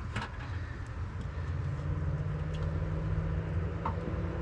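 Low steady rumble of a vehicle, with a held low hum through the middle and a light click or two right at the start.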